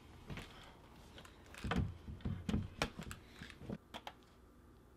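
Thumps and knocks of a laptop being set down on a desk as a person settles in, the loudest about halfway through, followed by a few sharp clicks of typing on the laptop keyboard near the end.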